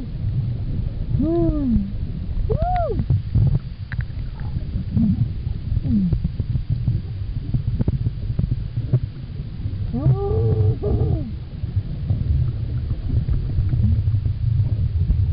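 Underwater sound of scuba breathing: a steady low rumble with crackling exhaust bubbles. Over it come humpback whale song moans, each rising and falling in pitch, a few in the first three seconds and a cluster about ten seconds in.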